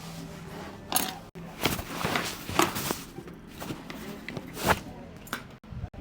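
A barber's hands slapping and patting during a head and back massage: about five sharp slaps at uneven spacing, the loudest near the end.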